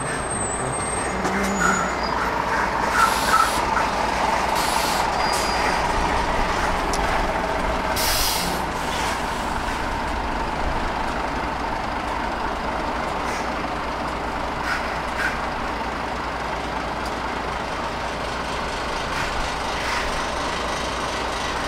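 Heavy lorries passing in road traffic with their engines running, and a few short air-brake hisses in the first half.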